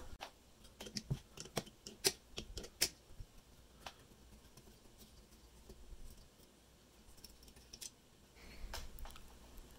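Sharp little metal clicks and taps as nuts and small parts are worked off the rear end of a car alternator with pliers and fingers. A quick run of clicks comes in the first three seconds, then scattered ones, with a few more near the end.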